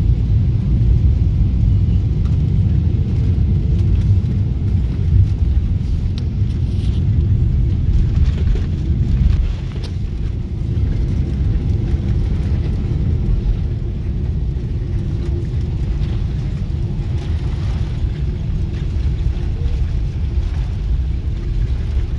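Boeing 777-300 airliner heard from the cabin during its landing rollout: a loud, steady, low rumble from the engines and the wheels on the runway as the jet brakes. The rumble drops noticeably about nine seconds in as the aircraft slows.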